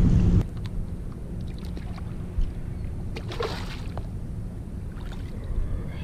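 Wind and water noise around a bass boat: a heavy low rumble that cuts off abruptly about half a second in, then a steadier low hum with faint knocks, and a short splash about three and a half seconds in as a hooked smallmouth bass is grabbed at the boat's side.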